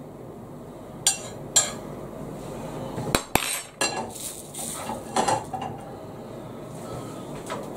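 Kitchen utensils clinking and knocking against a pan and plates while food is served out: several sharp clinks, a few seconds apart, over a low steady background noise.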